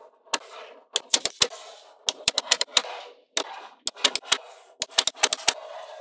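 Small magnetic balls clicking as they snap onto one another, in quick runs of four or five sharp clicks about once a second, with a softer rattle of balls shifting between the runs.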